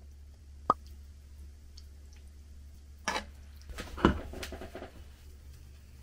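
A metal fork clinking on a ceramic plate and pan as tomato spaghetti is served, with wet squishes of the sauced pasta. One sharp clink comes about a second in, and a cluster of scrapes and clatters follows around three to four and a half seconds in, over a steady low hum.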